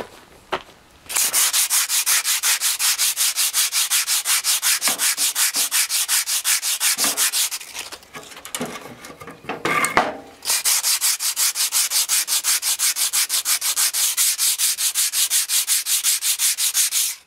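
An abrasive sanding block rubbed by hand in rapid, even back-and-forth strokes along a stone piece, smoothing the glued joint between two stones flush. Two long runs of strokes, broken by a pause of a few seconds midway.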